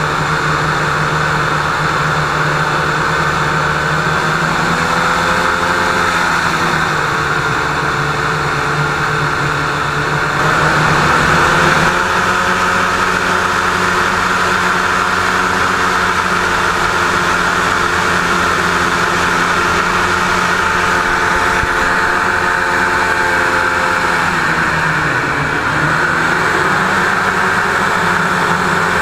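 Small hovercraft's engine and fan running loudly in a constant drone, heard from on board. The engine pitch rises and falls a few times as the throttle is changed.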